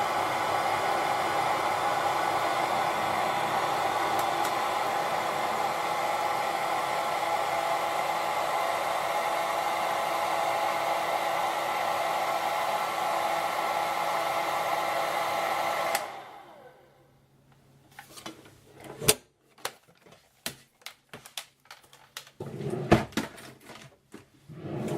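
Hand-held hair dryer blowing steadily, an even rush of air over a motor whine. About two-thirds of the way through it is switched off and winds down within a second or so, followed by a run of scattered clicks and knocks.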